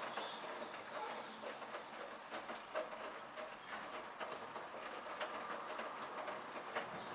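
Hoover washing machine drum turning a load of wet laundry, with a steady sloshing wash and many small irregular clicks and taps.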